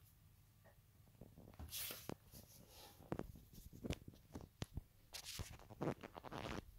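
Faint handling noises: scattered light clicks and knocks, with two spells of rustling about two seconds in and again after five seconds.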